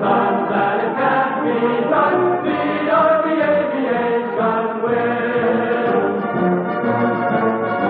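Choir singing long held chords in harmony, the chord shifting every couple of seconds.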